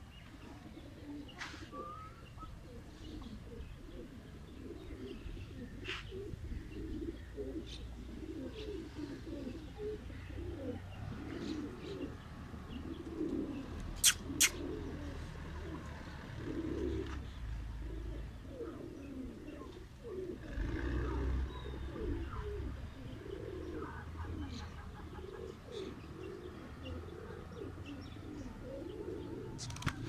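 A flock of domestic pigeons cooing, many low coos overlapping without a break. Two sharp clicks close together about halfway through.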